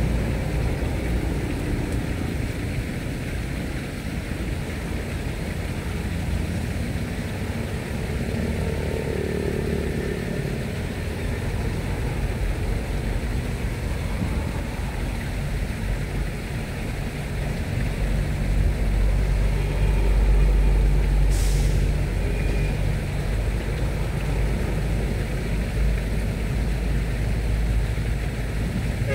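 Engine of a passing boat running with a low, steady rumble, growing louder about two-thirds of the way through, with one sharp click near its loudest point.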